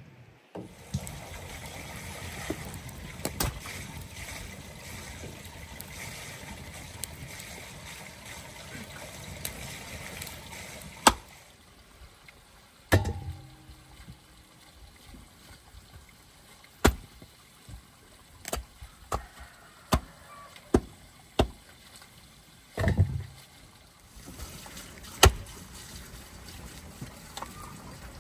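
A steady rushing noise for about the first ten seconds, then a run of sharp, irregular knocks and clatters with a couple of heavier thuds.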